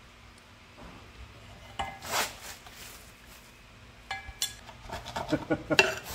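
Metal clinks and scraping as the propeller is worked off the splined propeller shaft of a Johnson 40 HP outboard's lower unit. There is a short scrape about two seconds in, a clink with a brief metallic ring a couple of seconds later, then a quick run of small clicks and knocks near the end.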